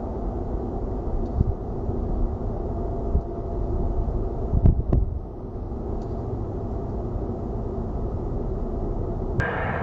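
Steady low rumble of a jet aircraft, with a few short knocks, the loudest about five seconds in.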